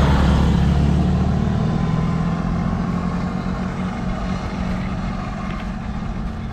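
A motor vehicle's engine running close by, its sound easing off gradually, over rushing noise.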